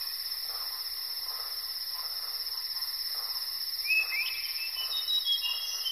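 Crickets chirping in a steady, pulsing trill. A few short sliding chirps join in about four seconds in.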